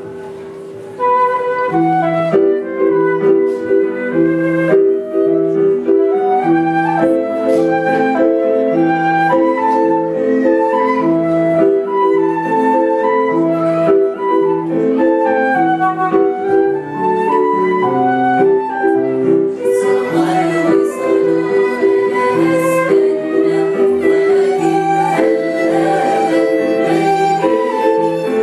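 Transverse flute playing a melody over a steady accompaniment of low sustained notes, starting about a second in after a held chord dies away.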